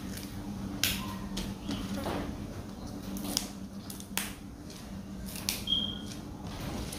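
Water spinach (kangkong) stems being snapped and leaves stripped by hand: a series of crisp snaps a second or so apart, over a steady low hum.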